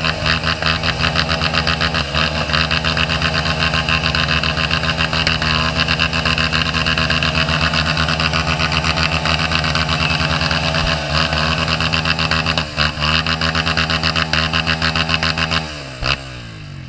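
Several dirt bike engines held at high revs while their rear wheels spin in a muddy puddle, spraying water and mud; the engines wind down near the end.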